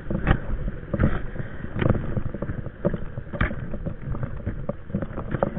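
Ice tool picks chopping into crusted snow over a thin layer of ice on frozen dirt, a handful of irregular crunching strikes, with gloves and clothing scuffing against the snow between them.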